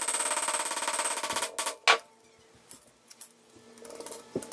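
Small hammer tapping the thin steel blade of an antique carpenter's square laid on an anvil, to flatten it. A fast, rattling run of taps for about the first second and a half, then two harder single blows, then a few lighter separate knocks.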